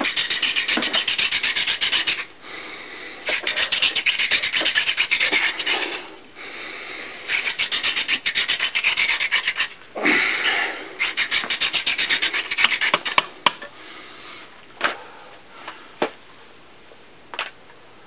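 Hand-drill fire-by-friction: a hemp spindle spun back and forth between the palms in a basswood hearth board, making fast rhythmic wood-on-wood rubbing in about four runs of a few seconds each with short pauses between. The friction grinds out hot wood dust in an attempt to build an ember. The drilling stops about two-thirds of the way through, and only a few scattered knocks follow.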